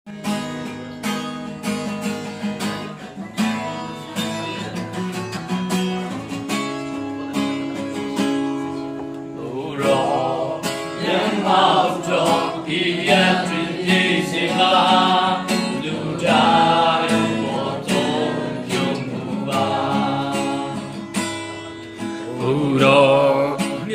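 Acoustic guitar strummed alone for about ten seconds as a hymn introduction, then a congregation of men and women joins in, singing a hymn to the guitar.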